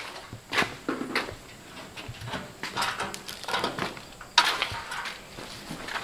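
Scattered clanks and knocks of metal fender parts and hand tools being handled, with a louder sudden knock about four and a half seconds in.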